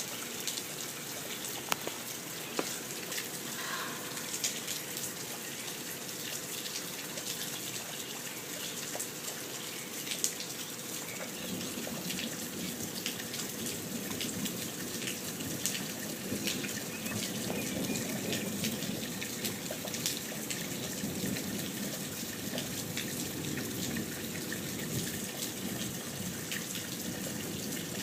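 A garden slug feeding on moist cat food, close-miked: many small wet clicks and crackles over a steady hiss.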